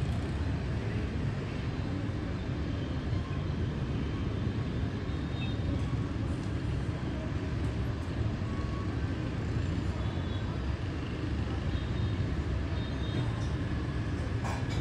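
Steady low rumble of city street traffic, mostly motorbikes and cars, heard from high above.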